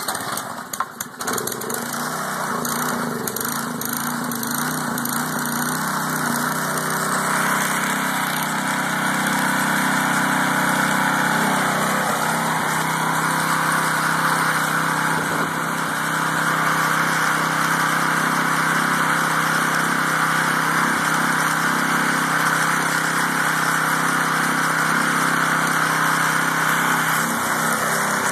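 Cold start of a 3.5 hp Briggs & Stratton single-cylinder four-stroke engine on an MTD edger. It catches with a few uneven pulses over the first couple of seconds, then runs steadily, a little louder from about eight seconds in. It runs well with its once-stuck exhaust valve freed.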